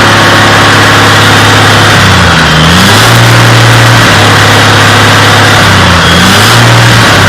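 Caterpillar C15 ACERT twin-turbo diesel engine idling steadily, then revved up and let back down several times from about two seconds in.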